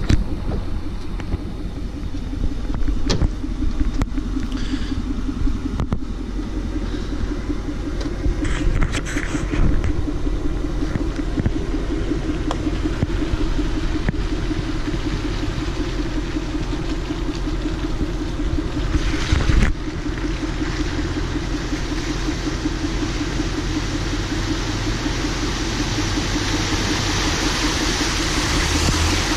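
Ford 6.4-litre Power Stroke V8 diesel pickup running steadily at low speed, a continuous low rumble with a few sharp knocks. A hiss grows louder over the last several seconds.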